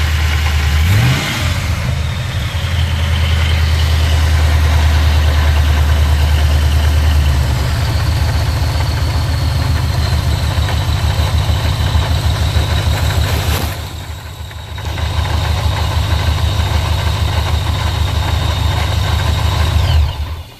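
2003 Ford Lightning's supercharged 5.4 L V8 running, with a faint high whine over the engine. This is the supercharger noise that began after its rotors were swapped and its case bearings replaced. The revs rise briefly about a second in, and the sound dips briefly near the middle.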